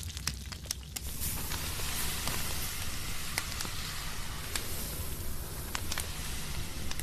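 Rice husks crackling as they smoulder on a charcoal fire: a steady hiss with scattered sharp pops, louder from about a second in. Before that, a quieter sizzle of the fish frying.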